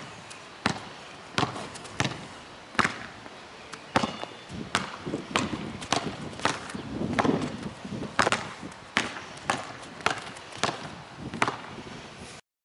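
Basketball dribbled on asphalt, bouncing in a steady rhythm of about one and a half bounces a second as it is crossed between the legs.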